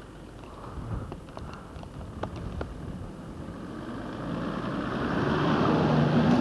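Toyota 4x4's engine coming down a sand dune toward and past, growing steadily louder from about halfway, with a rushing hiss of sand sliding around the tyres; the engine note comes through clearly near the end as the vehicle passes close.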